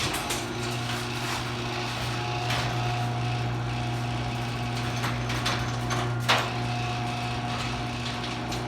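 LiftMaster garage door opener starting with a click and running steadily as it moves the door, its motor humming with rattling and clicking from the moving door and track, and a louder clack about six seconds in.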